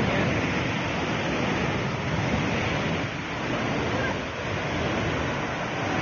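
Steady rushing of fast white water in a river just below a waterfall.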